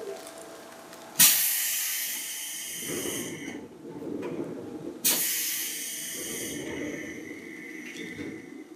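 Compressed air venting from a Seibu 2000 series train in two sudden sharp hisses about four seconds apart, each fading away over a second or two, with a low rumble between and after them.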